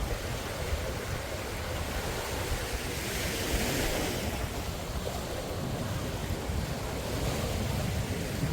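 Small sea waves washing onto a sandy beach, a steady hiss that swells about three seconds in, with wind rumbling on the microphone.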